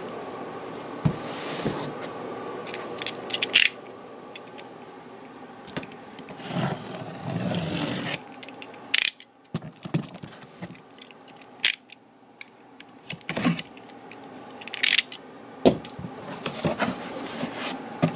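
Utility knife slitting packing tape on a cardboard box, and the box flaps being worked open: irregular scrapes, rustles and sharp knocks.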